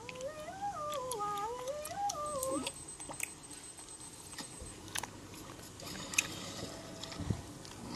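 Cartoon soundtrack played through computer speakers: a wordless, wavering sing-song voice stepping up and down in pitch for about the first two and a half seconds, then faint scattered clicks.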